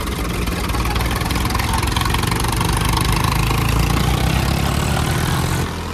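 Heavy tractor diesel engines running loudly together, pulling against each other in a tractor tug-of-war. The engine sound swells slightly, then drops off abruptly shortly before the end.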